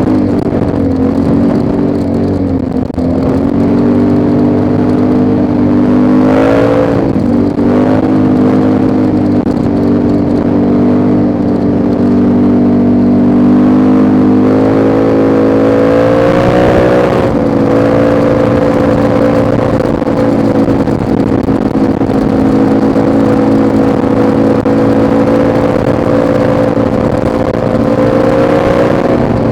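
ATV engine running steadily while riding. Its pitch dips and climbs again about seven seconds in and once more around sixteen seconds, as the throttle is eased and reopened.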